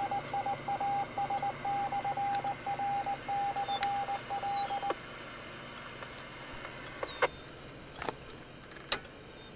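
A single steady beep tone keyed on and off in short and long pulses, like Morse code, heard over a radio. It stops about five seconds in and leaves faint hiss with a few scattered clicks.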